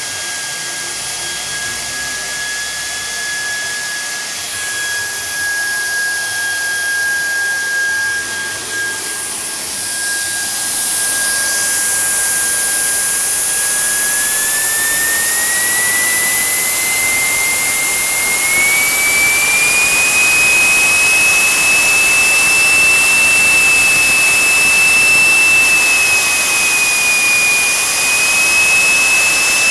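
JetJoe 1400 model jet turbine running at speed with a steady high whine over a hiss. About halfway through, the whine climbs in pitch in a few steps as the turbine spools up to higher rpm, then holds at the higher pitch.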